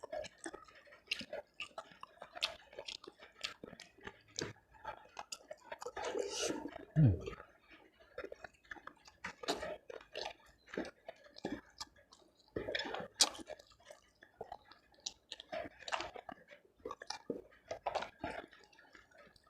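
A person chewing tough beef close to the microphone, with many small wet mouth clicks and smacks. A brief hummed sound falls in pitch about a third of the way in.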